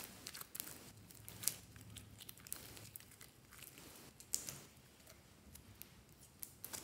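Clear purple glitter slime being stretched and pulled apart by hand, giving faint sticky crackles and small pops. There are sharper snaps about one and a half seconds in, just past four seconds, and near the end.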